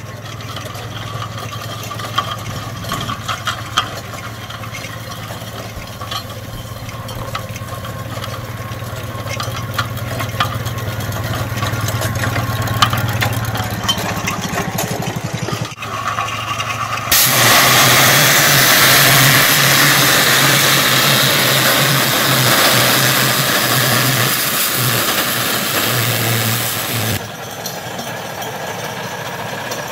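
Scale-model Case steam traction engine running with a steady low hum and light clicks and knocks of its works. Past the middle, a loud rushing hiss of steam takes over for about ten seconds, with a pulsing low beat beneath it, then cuts off suddenly.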